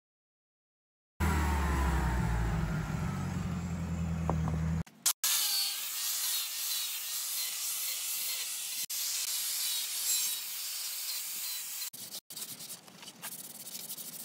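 Angle grinder fitted with a carving disc stripping bark from an eastern red cedar log: a steady, hissing grind from about five seconds in, turning quieter and choppier in the last couple of seconds. Before it comes a different, louder sound with deep steady tones that cuts off suddenly.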